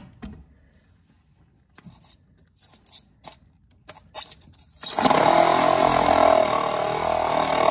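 A few clicks and knocks of handling, then about five seconds in a compact reciprocating saw starts cutting through the wooden floor framing, running steadily and loudly to the end.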